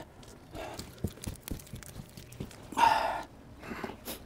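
A man's breathy sigh about three seconds in, amid light knocks and scrapes from handling an open metal can of liquid roof sealant, with a sharp click near the end.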